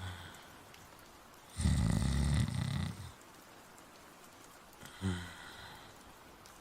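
A person snoring slowly, as a voice-acted sleep sound: one loud, rattly snore about a second and a half in that lasts over a second, then a short, low breath sound about five seconds in.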